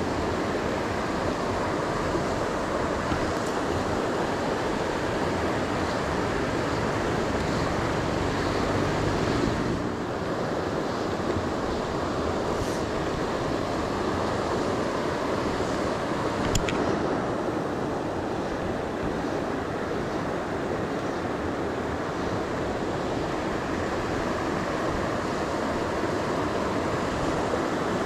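Steady rushing of flowing river water, an even noise without a beat, with a single click about two-thirds of the way through.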